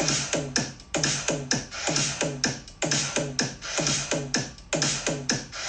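Electronic music with a steady, quick drum-machine beat, about four hits a second.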